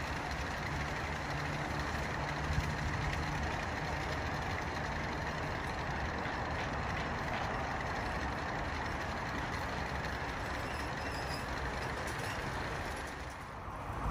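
Steady rolling rumble of a G scale model train's ore cars on outdoor track, with a low hum from the locomotives' motors; the onboard sound system is switched off, so only the running noise is heard.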